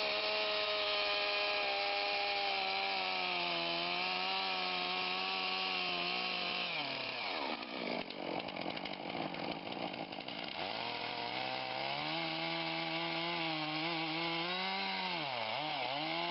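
Two-stroke chainsaw cutting into a beech trunk at high revs. The engine sags lower about seven seconds in, revs back up a few seconds later, and dips briefly near the end.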